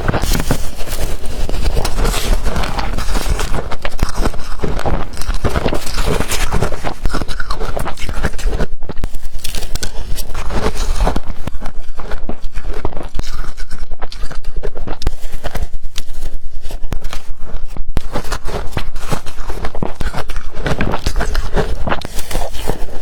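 Blender-crushed ice being bitten, heard close up as a dense run of rapid, loud crunches.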